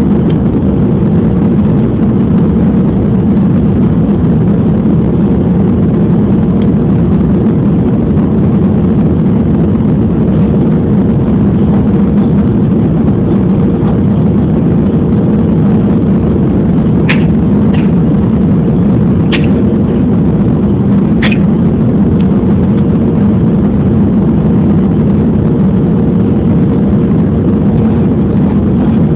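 Steady drone of an airliner cabin on approach to landing: engine and airflow noise with a thin, constant hum. A few short clicks or rattles come about two-thirds of the way through.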